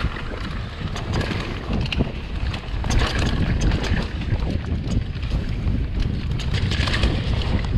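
Wind buffeting the microphone over a steady low rumble, with scattered knocks and rattles.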